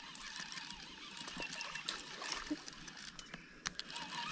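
Faint water trickling and lapping, with a few scattered sharp clicks.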